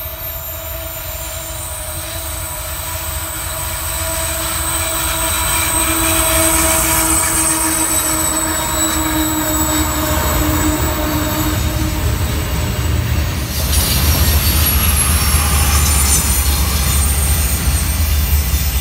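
A freight train rolling past with steady squealing tones from its wheels over the rumble of the cars. About 13 seconds in, another passing train takes over: a BNSF diesel locomotive, with a louder, deep engine rumble.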